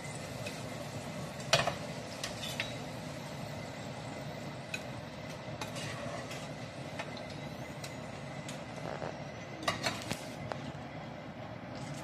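A metal utensil clinking against a ceramic plate of french fries: several sharp clinks, the loudest about a second and a half in and a small cluster near the end, over a steady rushing background noise.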